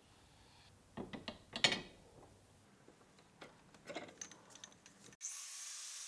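A few light knocks and ringing metal clinks. Then about five seconds in, an angle grinder switches on and spins up with a rising high whine and hiss.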